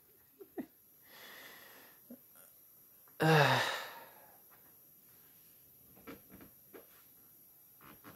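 A man breathing out: a soft breath about a second in, then a louder voiced sigh, breathy and falling in pitch, a little after three seconds, followed by a few faint mouth clicks.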